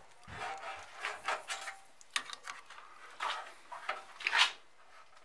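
Scattered handling noises: rustles, light knocks and clicks as a power cord is moved and set up around an AV receiver, with the sharpest knock about four and a half seconds in.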